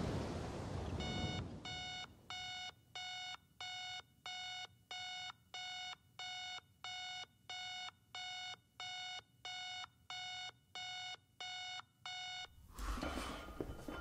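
Digital bedside alarm clock beeping: a long run of identical short electronic beeps, about two a second, that stops near the end. Right after it comes a heavy clank of gym weights.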